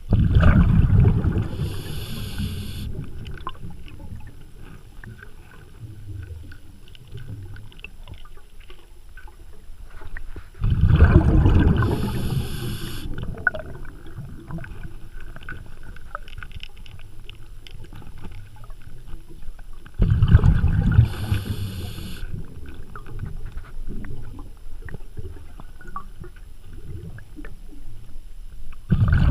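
Diver breathing through a regulator underwater: a loud burst of bubbling and hissing about every ten seconds, with quieter bubbling between breaths.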